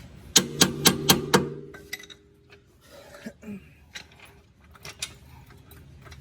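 Five quick metal-on-metal taps, each leaving a brief ring, followed by scattered light clicks and clinks of metal parts being handled.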